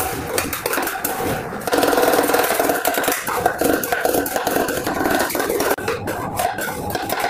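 Metal spatulas scraping and chopping on a chilled stainless-steel cold plate, working cream and chocolate syrup into rolled ice cream, with rapid taps and rasping scrapes throughout.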